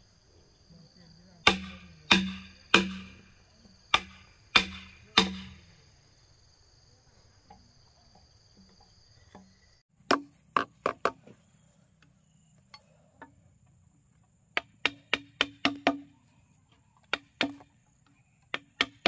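Repeated blows of a hand tool on wood. Six evenly spaced strikes come first, then after a pause quicker clusters of blows. Insects drone steadily throughout.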